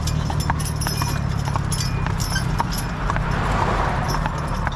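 Team of two Belgian draft horses walking on asphalt, their hooves clip-clopping in a quick, uneven run of sharp hoofbeats over a low steady rumble.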